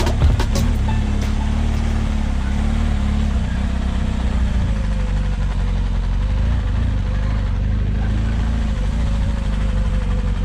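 Dirt bike engine running steadily as the bike rolls along a track.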